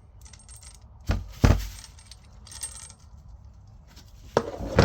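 Clinks and small clicks from a kitchen tap and its fittings being handled, with two loud knocks, one about a second in and one near the end.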